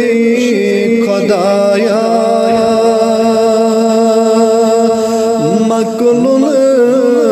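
Devotional song music: a long, held melody line with ornamental turns over a steady drone, sung in a chant-like style.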